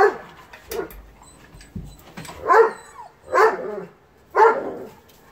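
A dog barking in rough play, short sharp barks about a second apart, the loudest three in the second half.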